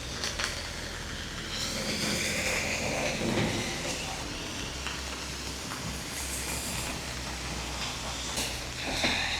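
Steady low vehicle rumble with a hissing swell about two seconds in and another near the end.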